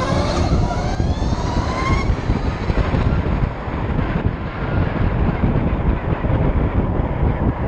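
Harley-Davidson LiveWire electric motorcycle at speed, about 70 mph: the electric motor's whine rises in pitch over the first two seconds as it accelerates. Heavy wind rush on the microphone runs under it.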